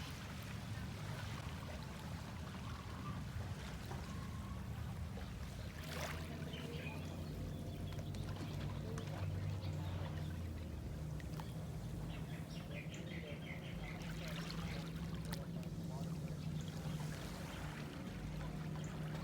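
Shallow water lapping and trickling at a beach shoreline, under a low steady hum, with faint distant voices.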